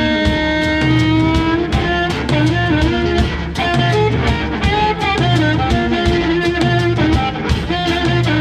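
Live blues band: an amplified harmonica, cupped against a microphone, holds a long note that bends upward about a second and a half in, then plays short rhythmic phrases over electric guitar and drum kit.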